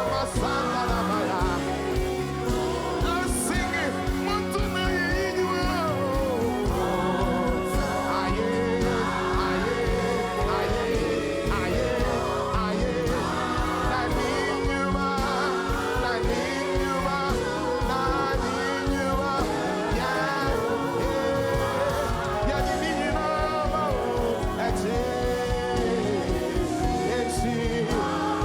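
Gospel worship music with singing over sustained chords and a steady bass, held at an even level.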